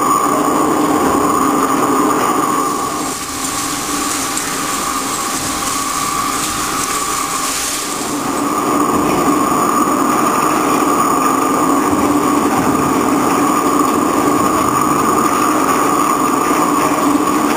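Hwacheon VT 4500 vertical turning lathe taking a heavy 18 mm-deep cut at 1.2 mm/rev on an SM490A steel ring. It makes a steady machine noise with a low hum and a higher tone over it, and for a few seconds in the middle the tones fade under a louder hiss.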